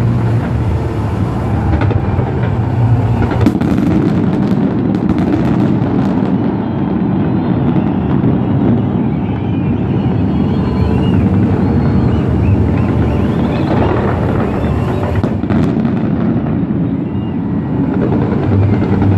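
Distant fireworks display: a continuous rumble of overlapping bursts, with sharper cracks about four to five seconds in and again near the fifteen-second mark.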